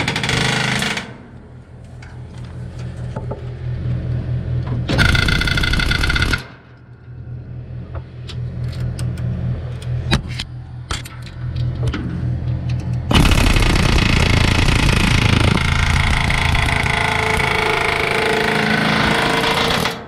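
Pneumatic air hammer rattling against a rusted-in bearing cap on a round baler roller, driving it loose. It goes in three bursts: briefly at the start, for about a second and a half around five seconds in, and steadily through the last seven seconds, with scattered clicks between.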